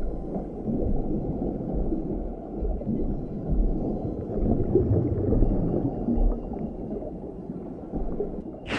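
Muffled underwater ambience: a low, churning rumble of moving water with gurgling. Just at the end, a brief sharp whoosh.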